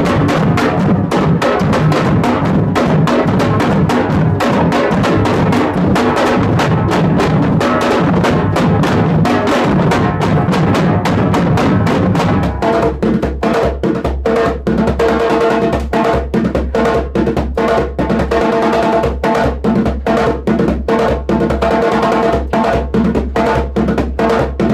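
A drum ensemble playing large painted strapped bass drums and smaller drums with sticks, a dense, fast rhythm of many strokes. About halfway through, the low drums change to a different, more even pattern.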